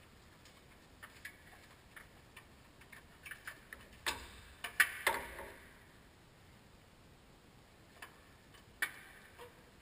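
Scattered light clicks and taps of hands and parts working on the EVAP vent solenoid valve and its mounting bracket under a GM truck's frame, irregular rather than rhythmic, with the loudest click about five seconds in.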